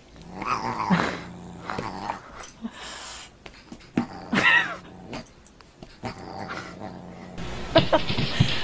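A dog growling in short bursts while play-fighting with a cat. Near the end the sound changes to short knocks.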